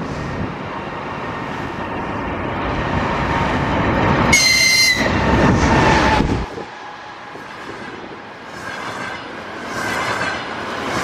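EP20 electric locomotive and its double-deck passenger train approaching and running past at speed: a rumble that builds over several seconds, with a short, high-pitched horn blast about four seconds in. After a sudden drop in the low rumble, the passing carriages' wheels clatter over the rail joints.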